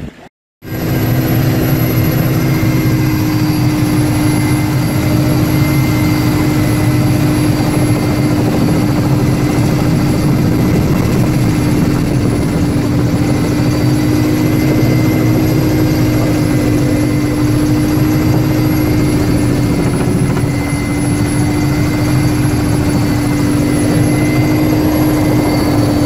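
A firefighting helicopter's turbine engine and rotor running steadily in flight, heard from aboard: a dense, loud rotor rumble with a constant high whine over it. It starts abruptly about half a second in, after a moment of silence.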